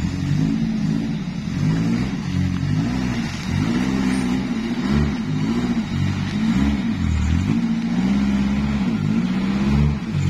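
Modified Daihatsu Taruna 4x4's four-cylinder engine revving up and down again and again as the off-roader pulls itself through slippery mud.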